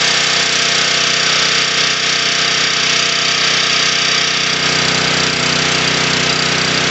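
Honda GX270 single-cylinder engine of a Baldor Powerchief PC50H 5000 W generator running steadily, freshly filled with new oil after diesel was drained from the crankcase, with the smoke from the diesel burning off.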